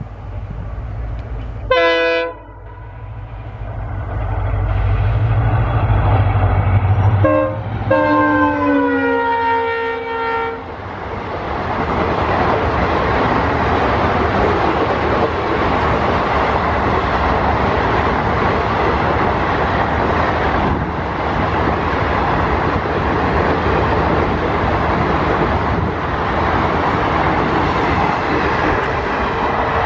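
Train horn sounding a short blast, then a longer blast about seven seconds in whose pitch drops slightly as it goes by. A train then passes close by with a loud steady rumble of wheels on rails.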